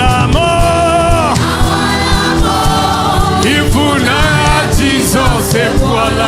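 Gospel worship music: singers holding and sliding through long sung notes over a band with a steady beat.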